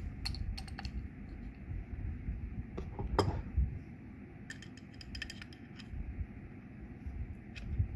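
Two metal wrenches clinking as they are picked up and set on a threaded stainless quick-connect fitting on a pressure washer filter: scattered metallic clicks, with a quick run of them about five seconds in.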